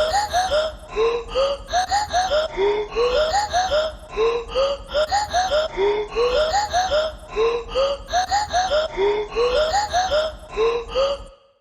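Background music: a looping phrase of short, rising notes repeating over and over above a low hum, cutting off abruptly near the end.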